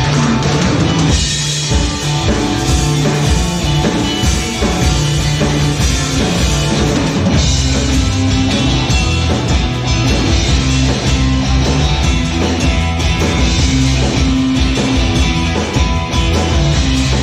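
Psychedelic rock music: a band with drum kit and guitar playing loud and steady.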